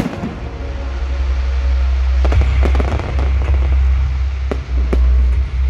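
Aerial fireworks bursting: a dense crackle at the start, then several sharp bangs from about two seconds in, over a deep continuous rumble.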